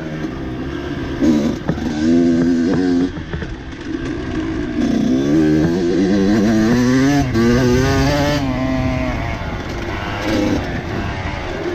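Dirt bike engine revving up and down as the throttle is worked, its pitch rising and falling several times, strongest in the middle of the stretch.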